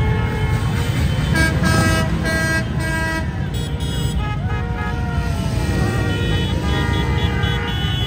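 Vehicle horns tooting in a run of short repeated blasts at several different pitches, beginning about a second and a half in, over constant loud background noise.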